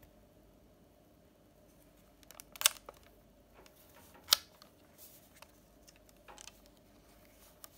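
Plastic clicks and handling noise from an Olympus Trip AF 50 compact 35mm film camera as its sliding lens cover is opened: a short cluster of clicks about two and a half seconds in, one sharp, louder click just after four seconds, then a few light ticks.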